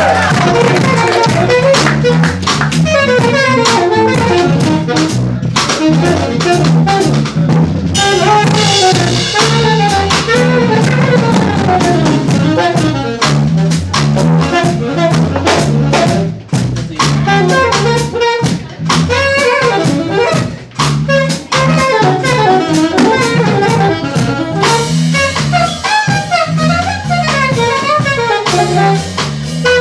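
Live band playing a jazzy instrumental: saxophone lead over a drum kit and a repeating bass line, with no singing.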